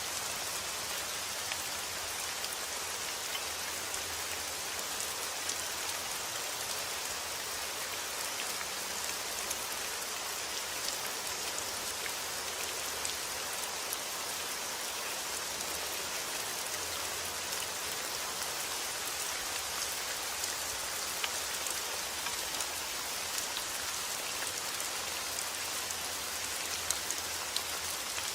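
Steady rain falling, an even hiss with many small drop ticks on a surface, no thunder.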